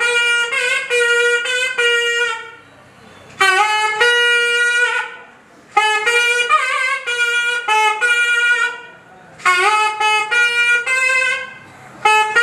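Nadaswaram, the South Indian double-reed temple pipe, playing an ornamented melody with sliding notes in phrases of two to three seconds, separated by short pauses.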